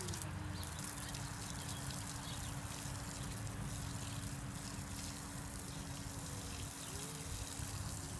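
Water from a garden hose spray nozzle hissing steadily as it waters plant pots, with a steady low hum running beneath it.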